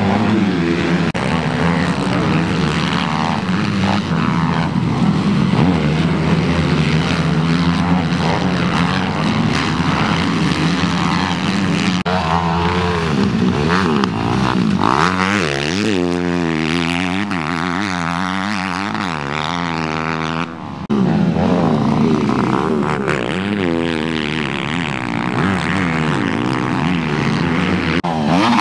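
Motocross dirt-bike engines revving hard, the pitch climbing and falling again and again as riders accelerate, shift and back off around the track. The sound breaks off briefly about two-thirds of the way through, then carries on.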